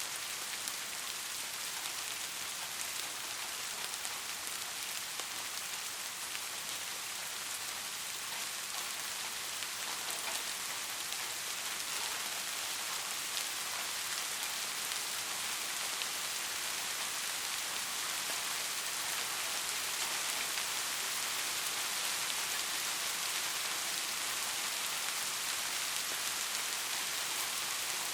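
Soft rain falling steadily: a dense, even hiss of drops with faint individual drop ticks scattered through it.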